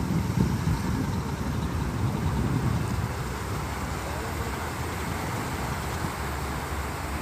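Beach ambience: a steady wash of surf and wind, with faint voices in the background.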